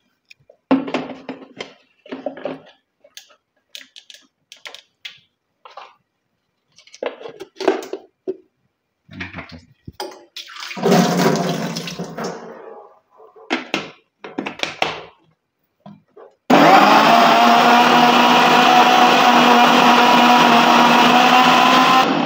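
Electric mixer-grinder (blender) running for about five and a half seconds with a steady whine, blending papaya pieces, milk and ice into a milkshake. It starts abruptly and cuts off just before the end. Before it come scattered knocks and clatters.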